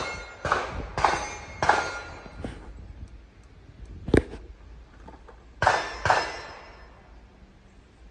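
Gunshots: a string of about five about half a second apart, each with a ringing tail, then one sharp metallic click about four seconds in, and two more shots close together near the end.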